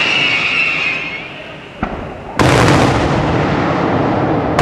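Daytime aerial fireworks: the hissing crackle of one burst fades over the first second, then a sharp bang near two seconds in and a heavier blast half a second later, followed by a continuing rumble of reports overhead.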